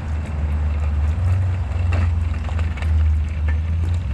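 Steady low rumble of wind buffeting the microphone during a bicycle ride, with scattered light clicks and rattles from the ride.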